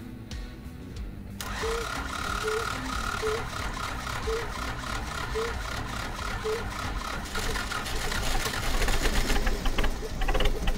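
T-40 tractor's air-cooled diesel being cranked by its starter on a cold start without preheating. The cranking sets in a little over a second in, goes with a beat about once a second, and grows louder in the last few seconds as the engine begins to catch, then stops just short of starting.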